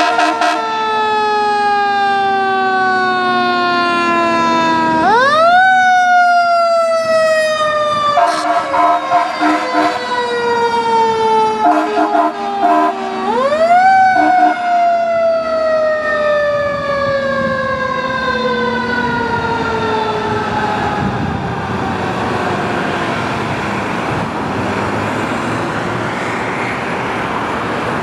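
Fire engine siren on a Pierce pumper, three times winding up quickly and coasting slowly down in pitch, with a stretch of short horn blasts about 8 to 13 seconds in. The siren fades as the truck pulls away, leaving road traffic noise.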